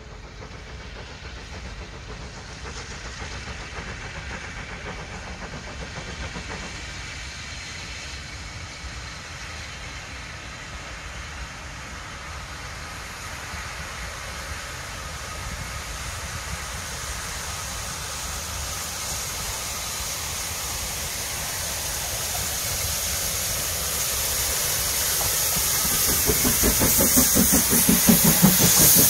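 Hunslet Austerity 0-6-0 steam locomotive approaching with its train, steam hissing, growing steadily louder and loudest near the end as it draws close.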